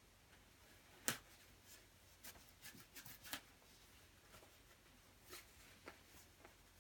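Scissors snipping into the quilted shell of a down jacket: a scattering of faint clicks and rustles, the sharpest about a second in.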